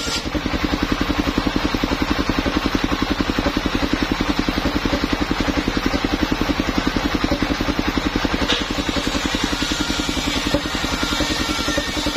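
Engine of a mobile circular sawmill running steadily with a rapid, even beat while the saw blade spins between cuts. A short hiss of sawing fades out right at the start.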